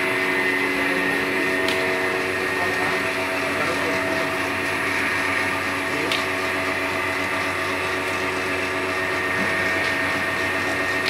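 A large motor-driven machine running steadily, a constant motor hum with several steady tones, with two light clicks.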